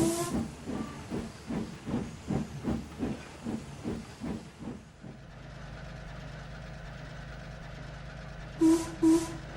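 Steam locomotive chuffing in a steady rhythm of about three puffs a second, with a short whistle at the start. The chuffs fade out about five seconds in, leaving a steady hiss and low hum. Two short loud whistle toots come near the end.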